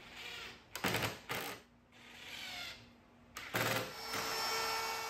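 Drill boring pilot holes in wood for screws: a few short bursts, then a longer run with a steady motor whine near the end.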